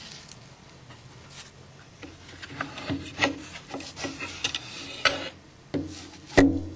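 Small plastic phone parts being handled: light scrapes and a scattered series of little clicks and taps, with a louder knock near the end.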